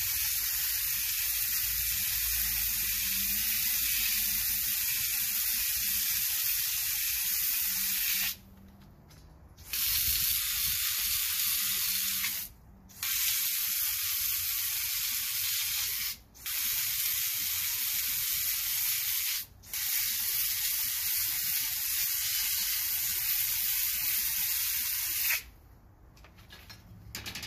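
Garden hose pistol-grip spray nozzle hissing as it jets water onto concrete. The spray cuts off briefly four times, the first time for over a second, and shuts off near the end.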